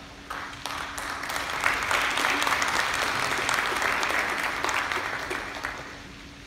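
Audience applauding, with the clapping starting about a third of a second in, building up, then dying away near the end.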